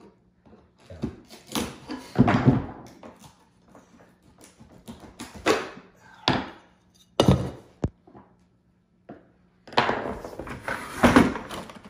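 Irregular wooden knocks and clunks as a split hardwood floorboard is worked loose with a chisel and rubber mallet, the pieces knocking against the floor. There are a few scattered hits, then a tight run of clatter near the end.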